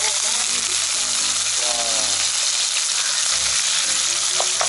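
Cubes of tofu sizzling steadily in hot oil in a frying pan, just dropped in and being turned with a wooden spatula.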